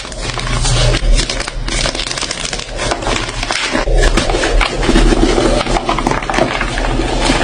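Gym chalk being crushed and crumbled, a dense run of crunching and crackling with many tiny snaps.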